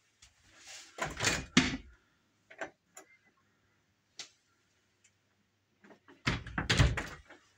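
Wooden cabinet door handled by its knob: a burst of latch clicks and knocks about a second in as it opens, a few light ticks, then another burst of knocks and rattles near the end.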